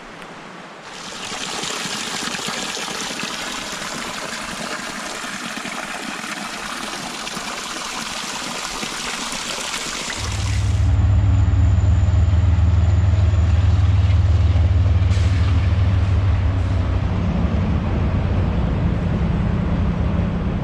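Rushing water hissing for about ten seconds, then, after an abrupt change, a train going by with a loud, steady low engine drone.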